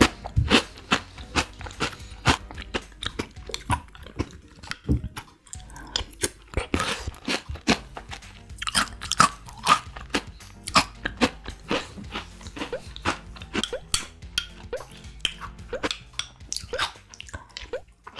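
Close-up eating sounds: wet mouth noises, chewing and crunching as spoonfuls of yogurt with crunchy pieces are eaten, with the spoon clicking against a glass mug. Soft background music plays underneath.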